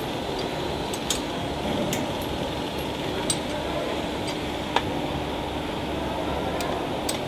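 Metal parts of an automatic can seamer being handled and fitted by hand: a few sharp clicks and clinks, the loudest about two-thirds through, over a steady background hum.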